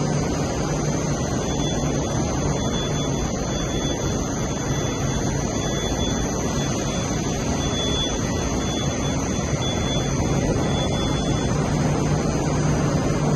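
Steady hum and rushing noise of a metro station platform with a subway train standing at it, doors open. A low drone runs underneath, and a faint high whine comes and goes through most of it.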